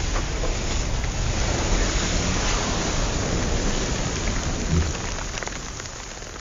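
A mass of wooden matches flaring and burning together: a loud, steady rushing hiss with scattered crackles. It eases a little toward the end and cuts off suddenly.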